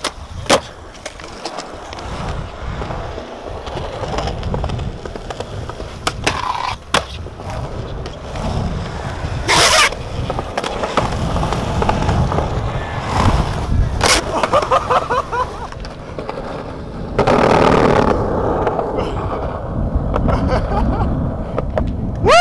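Skateboard wheels rolling on concrete in a steady rumble, broken several times by sharp clacks of the board striking the ground.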